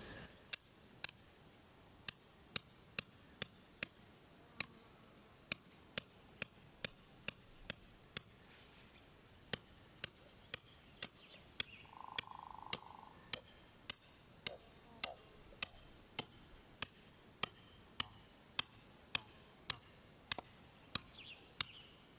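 A 3 lb steel sledge striking a 12-inch steel tent stake again and again, driving it into hard, compacted dirt: around forty sharp metal-on-metal clinks at about two a second, with a few short pauses. The stake is going in with difficulty.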